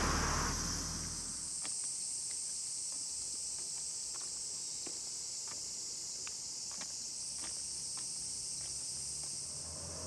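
Steady, high-pitched chorus of insects such as crickets or cicadas, with a low rumble fading away in the first second and a few faint clicks.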